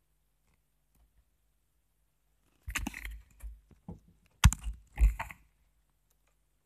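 Handling noise: a cluster of knocks, clicks and rustles as the handheld phone camera is moved about and brushes against things. It starts about three seconds in, and the loudest two knocks come near the end.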